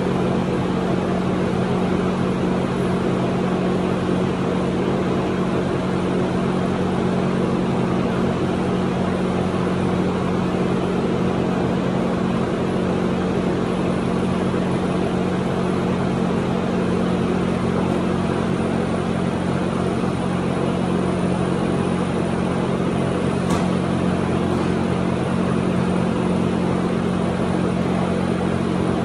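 Steady motor hum under a constant rushing noise, even and unchanging in pitch and level.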